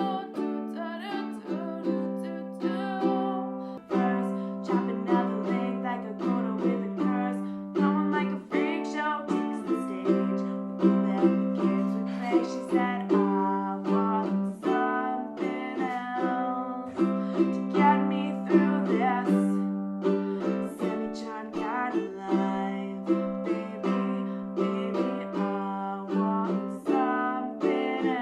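A plucked string instrument playing a steady stream of quick picked notes over sustained low notes, each note starting sharply and ringing away.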